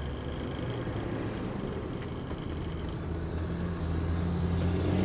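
Chevrolet S10 pickup driving, heard from inside the cab: a steady low engine and road hum that grows a little louder and slightly higher in pitch in the last second or so.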